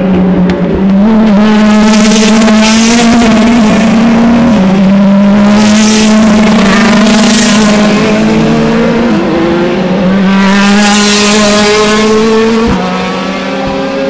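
DTM touring cars' 4-litre V8 racing engines passing close by at racing speed, one after another. The engine notes step in pitch as each car goes through, with a few loud surges as the nearest cars sweep past.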